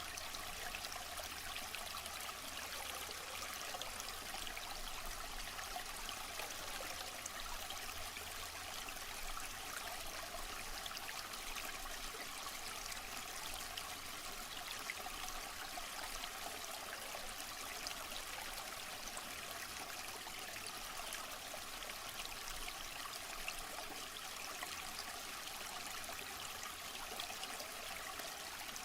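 Waterfall: a steady, unbroken rush of falling water, its hiss spread mostly through the middle and upper range. A faint low rumble underneath fades out about halfway through.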